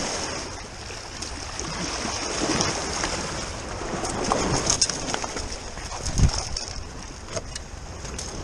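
Sea water washing and splashing among the rocks of a breakwater, with scattered knocks and scuffs and one louder thump about six seconds in.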